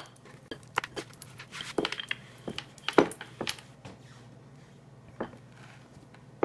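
Light knocks and clinks of a wooden rolling pin and a drinking glass being handled on a wooden pastry board. There are several in the first three seconds or so, then it goes quieter, with one more knock a little after five seconds.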